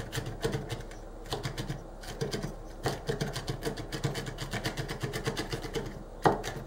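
Ulu knife rocking quickly on a plastic chopping bowl, mincing nuts: a fast, even run of small taps of the blade on the board, with a few louder knocks, the loudest near the end.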